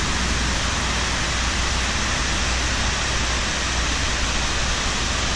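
Steady, even rushing of the waterfall pouring down the walls of a 9/11 Memorial pool.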